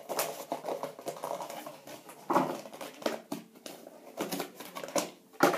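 Irregular rustling, crinkling and light knocks of Skylanders toy figures and their packaging being handled.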